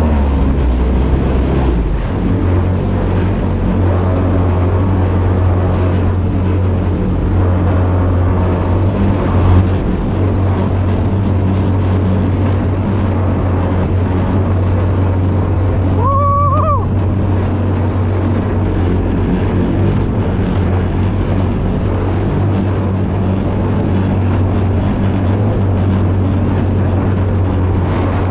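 A 17 hp jet kayak's engine running steadily under way, a constant low hum with water rushing past. A short high-pitched call cuts in briefly about sixteen seconds in.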